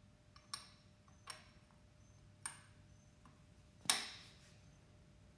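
Metal cap being fitted back over the hook and bobbin of a Cowboy CB4500 cylinder-arm leather sewing machine: a few light metal clicks, then a louder click with a brief ring about four seconds in as the cap seats.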